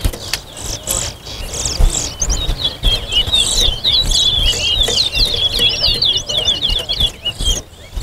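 Caged towa-towa finch singing a long, fast run of chirping, warbling notes from about two seconds in until just before the end, over a low background rumble.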